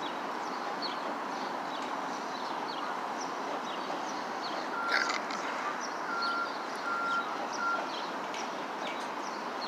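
Small birds chirping again and again over a steady background hum, with one sharper chirp about halfway through followed by four or five short beeps of one pitch.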